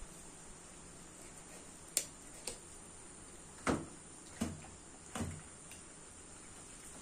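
Knife work on raw chicken on a stainless steel table: about five short, sharp knocks and taps, spaced irregularly, over a faint steady hiss.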